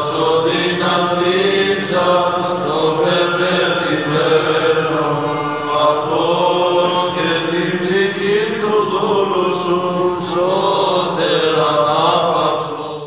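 Greek Orthodox Byzantine chant: voices singing a slow funeral hymn in long, ornamented phrases, with the pitch wavering and turning on held notes.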